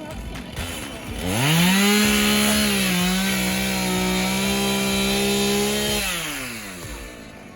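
Chainsaw revving up from idle to full throttle, held there for about four seconds, then easing back down.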